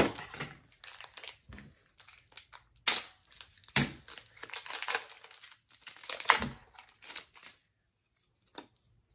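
Foil wrapper of a Pokémon Rebel Clash booster pack being torn open and crinkled in the hands, a run of sharp crackling rustles. The rustling stops shortly before the end.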